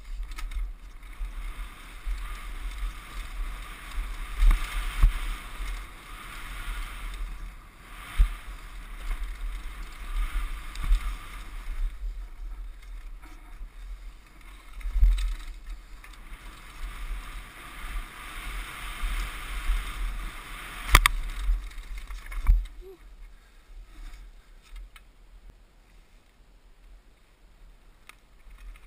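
Mountain bike riding fast down a rocky, gravelly trail, recorded on a helmet camera: wind buffets the microphone, tyres crunch over loose stones, and the bike knocks sharply over rocks, with two loud knocks a second and a half apart past the two-thirds mark. It grows quieter near the end as the path turns to grass.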